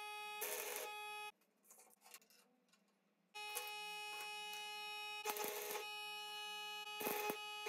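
An electric power tool motor runs with a steady high whine as metal is worked in the shop. The whine cuts off abruptly about a second in and starts again about two seconds later. Short bursts of harsher noise come three times as the tool works the metal.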